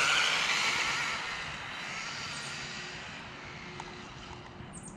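Electric MJX Hyper Go 4WD RC truck on a full-throttle speed run: a high motor whine with tyre noise, loudest at the start and fading steadily as the truck speeds away.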